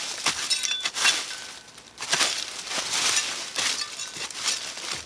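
Small spade digging into dry leaf litter and soil: repeated crunching, rustling strokes, about one a second, as the blade is driven in and leaves and earth are scraped aside.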